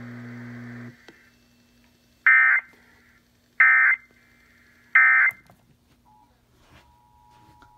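NOAA Weather Radio sending three short, loud SAME digital data bursts, a little over a second apart: the end-of-message code that closes an emergency alert broadcast. A low steady hum from the radio cuts off about a second in, before the bursts.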